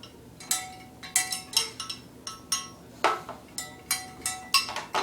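A small metal bell being struck again and again in quick, irregular strikes, about a dozen, each ringing briefly with a clear tone. About three seconds in comes one duller knock with no ring.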